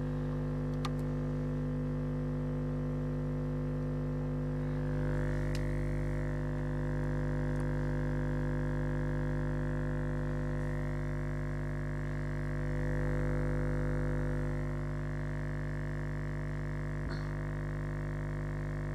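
JL Audio 10W7 subwoofer, driven by a JL 500/1 amplifier, playing a steady low test tone at a single frequency, heard as a constant hum with many overtones. It swells slightly twice.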